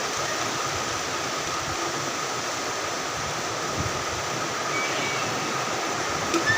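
Heavy rain falling steadily, an even hiss and patter, with a couple of short high chirps near the end.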